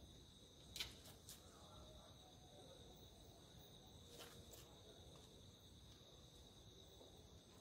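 Faint, steady, high-pitched insect chorus. Three sharp clicks come about a second in, the first the loudest, and two more around four seconds in.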